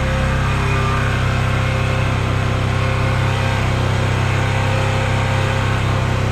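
Yamaha YBR125's air-cooled single-cylinder four-stroke engine idling steadily while it warms up after a cold start.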